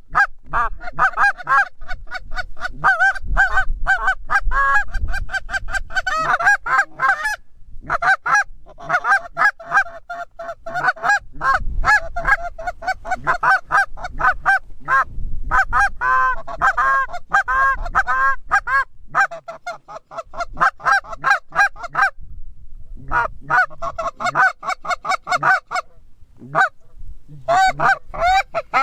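Canada geese honking, many quick honks overlapping in a steady stream that breaks off for a few short lulls.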